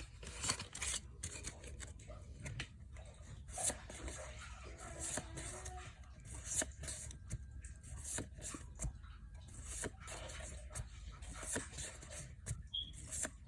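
A foil trading-card booster pack crinkling and tearing open, with cards rustling as they are handled. It makes an irregular run of short crackles and rustles.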